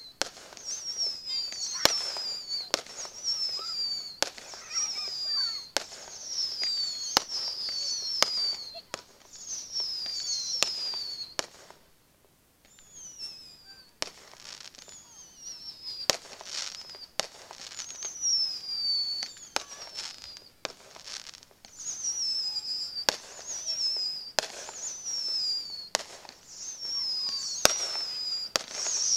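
Fireworks display: a rapid string of sharp bangs mixed with many high whistles, each falling in pitch and lasting under a second, with a short lull partway through.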